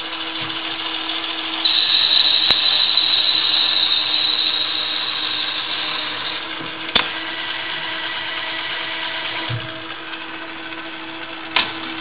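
Hardinge HLV-H toolroom lathe running, cutting a thread under its servo electronic lead screw: a steady machine hum, with a louder high-pitched stretch from about two to six seconds in. Three sharp clicks come at intervals.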